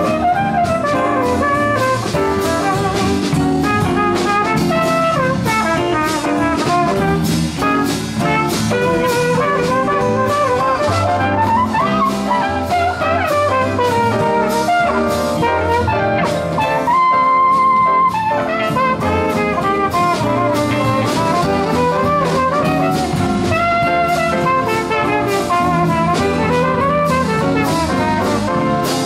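Small live jazz band playing, with a trumpet solo carrying the melody over upright bass and light percussion. The trumpet holds one long note a little past halfway, then runs on with the melody.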